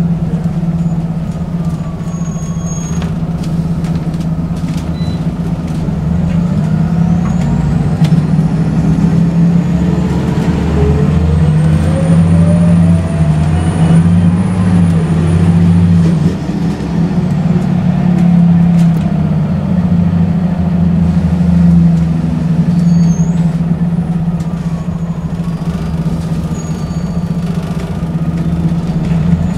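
Interior sound of a Scania L94UB CNG bus with a ZF automatic gearbox under way: a steady low engine drone, with whines from the driveline that rise and fall in pitch as the bus accelerates. Light clicks and rattles from the Volgren body over bumps, mostly in the first few seconds.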